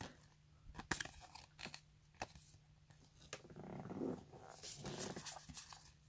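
Faint handling of Pokémon trading cards: cards sliding and shuffling in the hands with a few sharp clicks and taps, and a soft low swell of noise about four seconds in.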